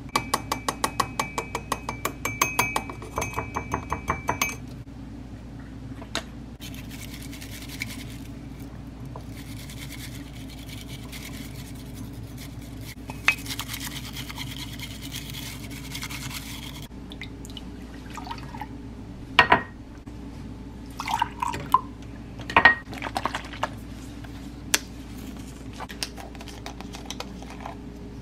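Metal spoon rapidly tapping and scraping matcha powder through a fine wire-mesh sieve, a quick run of ticks with a faint ringing tone, for the first four seconds or so. From about eight seconds in, a bamboo matcha whisk swishes through the tea in a ceramic bowl, a soft hiss that stops at about seventeen seconds; a few separate clinks and knocks follow.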